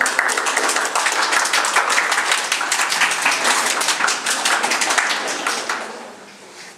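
A group of people applauding: dense hand clapping that tails off and fades out near the end.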